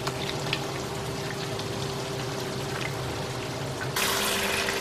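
Tamarind pulp being squeezed and mixed by hand in a bowl of water: soft, wet squelching and sloshing. About four seconds in, it gives way to food sizzling in a hot wok as curry powder and vegetables are stirred with a wooden spatula.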